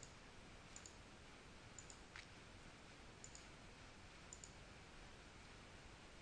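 Faint computer mouse button clicks as checkboxes are ticked. They come mostly as quick pairs, about four times in all, a second or so apart, over near-silent room tone.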